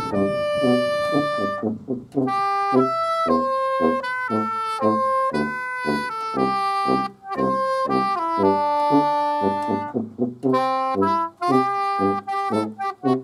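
Tuba and soprano saxophone duet, overdubbed: the soprano sax plays the melody in a run of short notes while the tuba plays a bass line beneath it.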